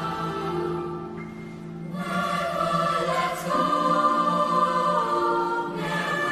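Mixed youth choir singing held chords; the singing softens about a second in, then swells again about two seconds in.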